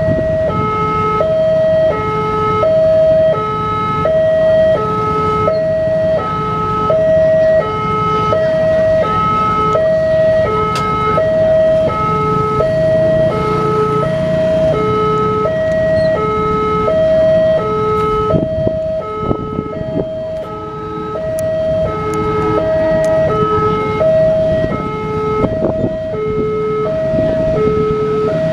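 Railway level-crossing warning alarm ringing its two alternating electronic tones over and over, the signal that the crossing is closed for an approaching train.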